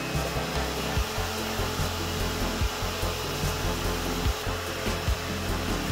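Vacuum cleaner running steadily, sucking dust out of the computer's parts.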